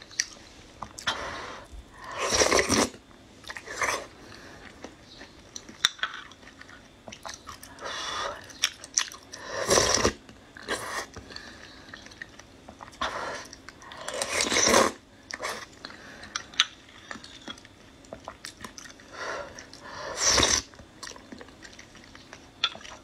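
A person eating thick nut-and-lotus-root-starch paste from a spoon close to the microphone: chewing with small crunches of nuts, and several louder mouth noises lasting about half a second each.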